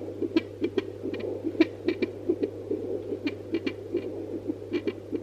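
Fetal heartbeat played through a handheld fetal Doppler's speaker: quick, even whooshing pulses at about two and a half a second, over a steady low hum.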